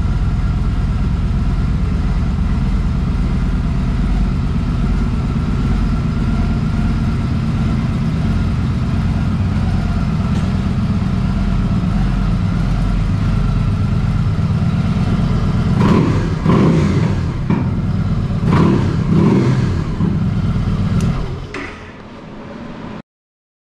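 2013 Victory Boardwalk's Freedom 106 V-twin idling steadily, then revved in several quick throttle blips near the end before the sound drops away.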